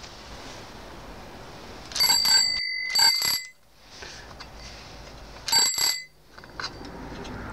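The NSU Quickly T moped's newly fitted two-piece bell with its metal dome, rung by its lever in three short bursts of clear ringing: about two seconds in, a second later, and again near the end.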